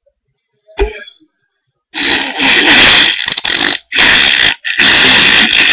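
A short knock about a second in, then loud, drawn-out fake fart noises in several long blasts with brief breaks between them.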